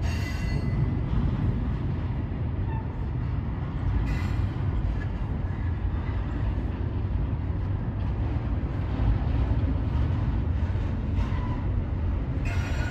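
Freight train's container cars rolling slowly over a steel girder bridge: a steady low rumble, with brief high-pitched wheel squeals at the start, about four seconds in, and just before the end.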